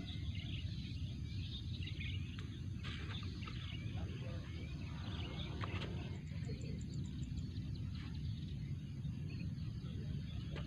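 Small birds chirping on and off over a steady low rumble, with a quick, high ticking trill about six seconds in.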